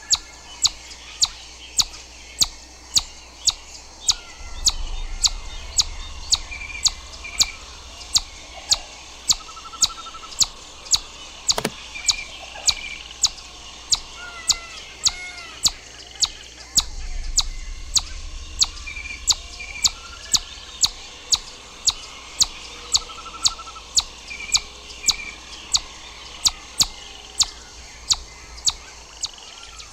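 Chipmunk giving its repeated high, sharp chip call, about two a second and very regular, with other birds calling softly in the background.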